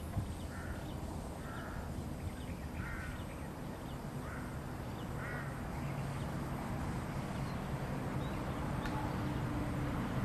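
A bird calling, about six short calls spaced roughly a second apart in the first half. Under it runs a steady low rumble, with a low hum that grows from about halfway through.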